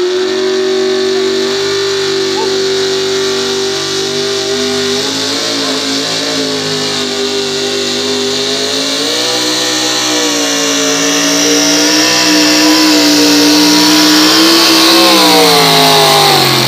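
Pulling pickup truck's engine held at high revs under load as it drags a weight sled, its pitch sagging and recovering through the pull, then falling away about fifteen seconds in as the driver lets off.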